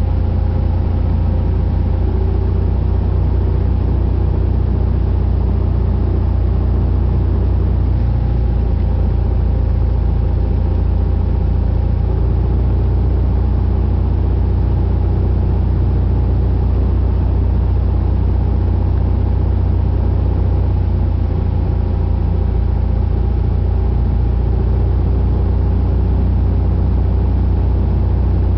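Cessna 182RG's six-cylinder Lycoming O-540 engine and propeller running in a steady drone on final approach, heard inside the cabin.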